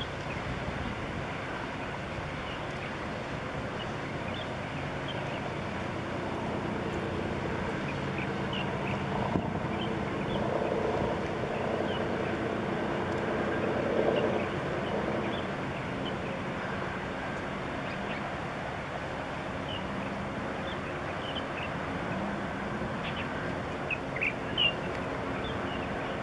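Steady low drone of the departing cargo ship's engine, swelling for a few seconds about halfway through, with scattered short bird chirps, more of them near the end.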